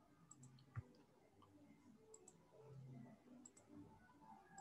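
Near silence: room tone with a few faint, short clicks, most of them in quick pairs, recurring every second or two.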